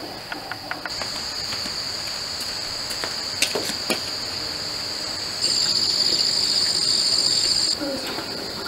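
Crickets trilling at night in a steady, high-pitched, continuous chorus that sets in about a second in and grows louder for a couple of seconds near the end. A couple of light knocks are heard midway.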